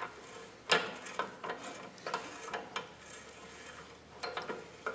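Breaker bar and socket working a nut loose on a Brinly plow's bracket, giving a string of irregular light metallic clicks and clinks.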